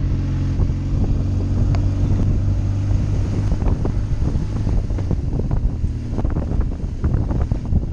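BMW R1200GS boxer-twin motorcycle engine running steadily while riding, with wind buffeting the camera's microphone. The buffeting turns choppier and gustier after about three seconds.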